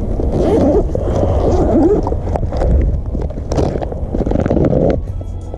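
Wind buffeting the microphone in a heavy low rumble, with the rustle and a few clicks of a fabric tackle bag being handled and a clear plastic zippered lure pouch pulled out of it.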